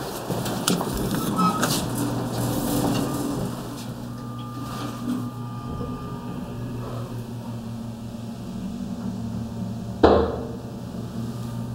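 Elevator car riding, a steady low hum of the running machinery, with a few clicks in the first seconds. About ten seconds in comes one sudden loud clunk that rings briefly.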